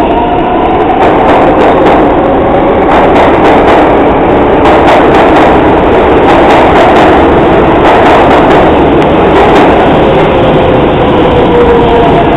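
R142A subway train pulling out of the station and running past at close range: a loud, steady rumble with many rapid clicks of wheels over rail joints.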